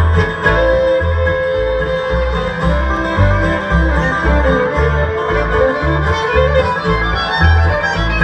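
Bluegrass string band playing an instrumental break between sung verses: picked strings over a steady bass beat of about two notes a second, with a sliding lead line.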